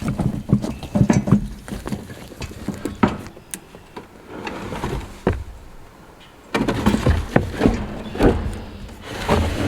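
Irregular knocks, bumps and clatter over a low rumble, from a wooden chick brooder box being handled and moved.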